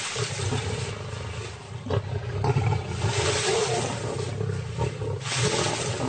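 Lions growling and snarling as they fight over a buffalo kill: continuous low, rumbling growls with louder, harsher outbursts several times.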